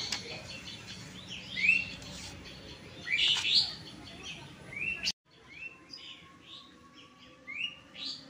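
Small birds chirping: many short, rising chirps coming in bunches, with a brief sudden dropout about five seconds in.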